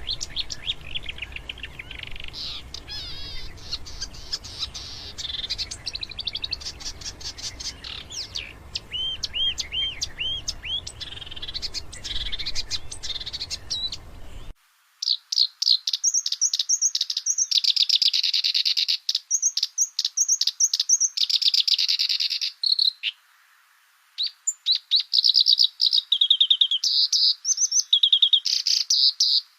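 Songbirds singing: dense runs of high whistled notes, fast trills and chattering phrases. About halfway through it cuts to a different recording, cleaner and without the low background hum, of a bird singing rapid trills and repeated whistles, broken by two short pauses.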